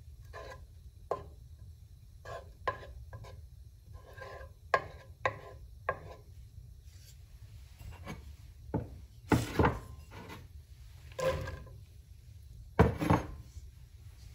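A wooden spatula scraping and rubbing across a ceramic-coated frying pan, pushing melting butter around in short strokes, then a few louder, longer scrapes in the second half. A low steady hum runs beneath.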